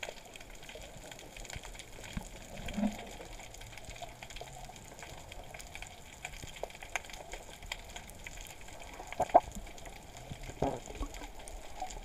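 Underwater ambience picked up by a camera moving over the seabed: a steady hiss with a constant crackle of small clicks and a few louder pops.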